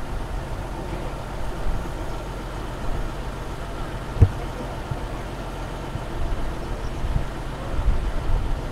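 Safari bus's engine idling with a steady low rumble. A single sharp knock a little over four seconds in.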